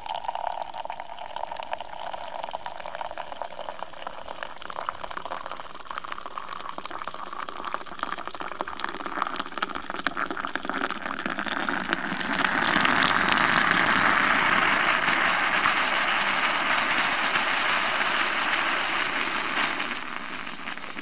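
Stovetop moka pot brewing coffee: a quiet trickle of coffee running from its spout, then from about twelve seconds in a louder steady hissing gurgle that dies down near the end. That late hissing gurgle is the sputtering of steam that marks the end of the brew.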